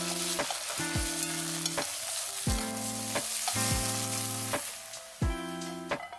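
Beaten egg sizzling in hot oil in a stainless steel frying pan as it is stirred and scrambled with chopsticks; the sizzle thins out about five seconds in. Soft background music with a regular beat plays underneath.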